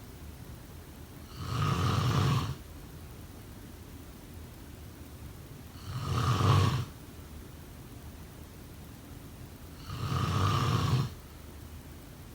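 A person snoring: three snores about four seconds apart, each lasting about a second, with a steady low hum between them.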